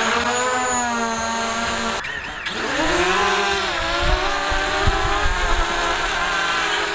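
DJI Mavic quadcopter drone's propellers buzzing with a whine of several pitches that waver up and down as it flies, with a short break about two seconds in.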